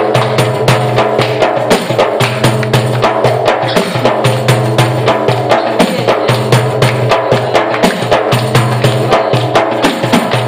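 Red frame drum with metal jingles, played with the bare hand in a fast, steady rhythm of about four or five strokes a second, the jingles rattling with each stroke. A sustained pitched tone runs underneath.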